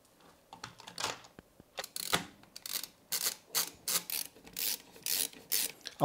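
A run of irregular light clicks and scrapes, plastic and metal, as an AIO liquid cooler's pump head is seated on the CPU and its mounting screws are started by hand, not yet tightened fully.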